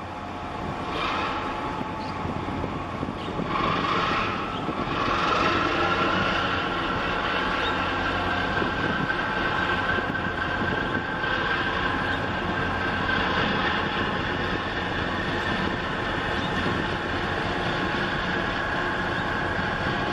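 Large container ship passing close by, its machinery giving a steady rumbling hum with a few held tones, growing louder about four seconds in.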